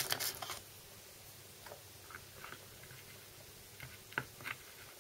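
Faint light clicks and taps as bullets are pushed by hand into powder-charged brass cases standing in a plastic loading block. There is a small cluster of clicks at the start, then only a few scattered taps.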